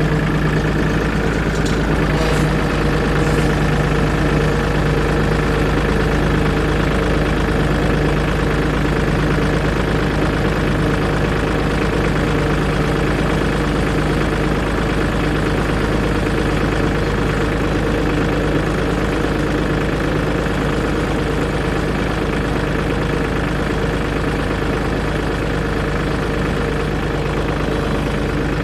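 New Holland compact tractor's diesel engine running steadily as it drives slowly on a sprayer test pass.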